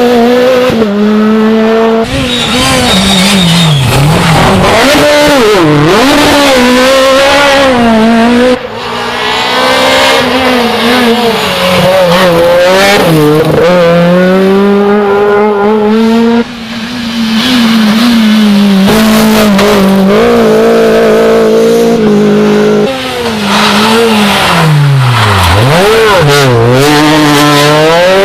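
Rally car engines at full throttle on a closed stage, a run of several cars in short clips separated by abrupt cuts. The engine note climbs through the gears and twice dives sharply before climbing again as the drivers back off and accelerate out of corners.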